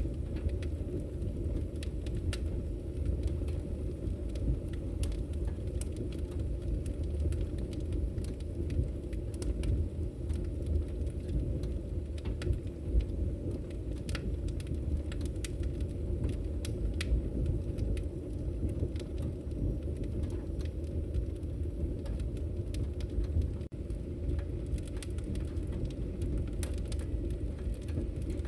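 Campfire burning: a steady low rush of flame with scattered, irregular sharp crackles and pops of burning wood.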